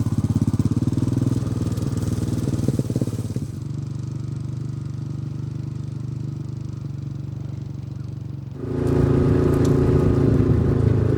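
John Deere 60G compact excavator's diesel engine running steadily. It gets somewhat quieter about a third of the way in, then runs louder near the end.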